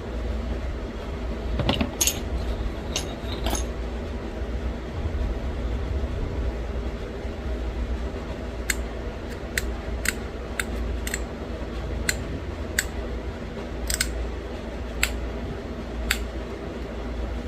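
Pressure flaking a small stone bird point: sharp ticks as tiny flakes pop off the edge, a quick few about two seconds in, then one every half second to a second through the second half, over a steady low hum.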